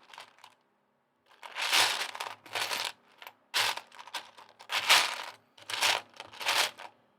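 Loose plastic Lego pieces clattering and rattling as a hand sifts through them looking for a piece, in about five short bursts.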